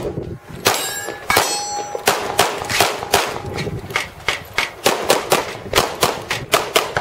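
Handgun fired in a fast string, two to three shots a second, about twenty shots in all. In the first couple of seconds, steel plate targets ring with a metallic clang when hit.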